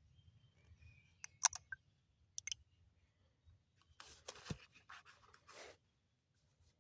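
A few sharp small clicks, then a couple of seconds of rustling and scraping as things are handled at a small fold-down desk.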